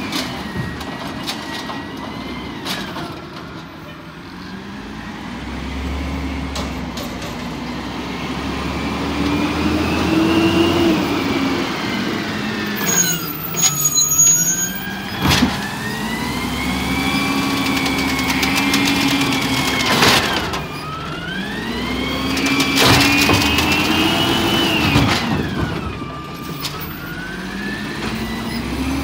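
Peterbilt 320 garbage truck with an Amrep automated side-loader arm, its engine revving up and down with a rising and falling whine as the arm cycles. A couple of sharp knocks come from a cart being handled by the arm partway through.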